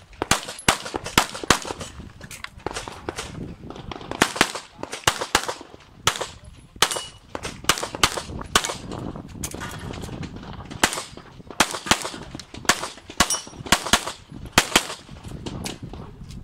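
Handgun shots fired in fast strings, often two or three in quick succession with short breaks between, as in an IPSC stage run.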